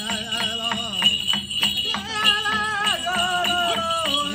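A singer chanting a traditional Native American song over a steady, even drumbeat, the held notes sliding up and down, with the jingle of bells on a hoop dancer's regalia.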